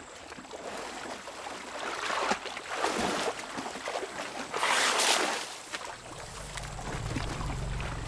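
Elephants wallowing in a mud hole, sloshing and splashing muddy water, with two bigger splashes, about two seconds in and about five seconds in. A low steady hum comes in about six seconds in.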